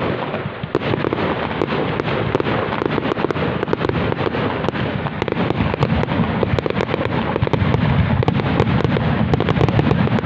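Fireworks display going off: a dense, continuous run of bangs and crackling shell bursts over a low rumble, growing louder toward the end.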